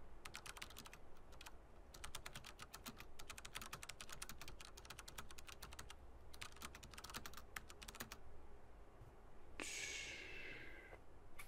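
Quiet typing on a computer keyboard in three runs of quick key clicks, then a brief swish near the end.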